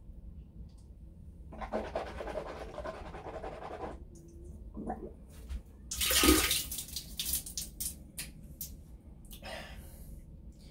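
A man gargling a mouthful of water for about two seconds, then spitting it out in a loud spray about six seconds in, followed by a few small clicks.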